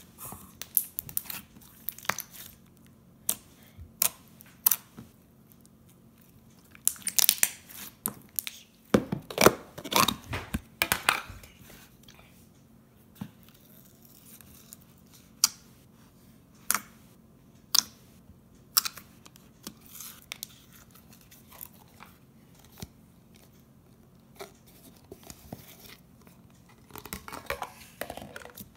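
Clear slime being pressed, poked and stretched by hand, giving irregular sharp pops and crackles. There are louder, denser runs of crackling about a quarter to a third of the way in and again near the end.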